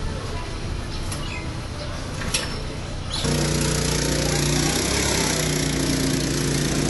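Small go-kart engine running steadily; about three seconds in it suddenly becomes much louder.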